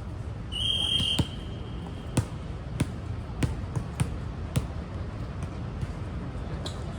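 A referee's whistle is blown once, held for about a second and a half. It is followed by a volleyball being bounced over and over on a hard court floor, a sharp thud every half second or so.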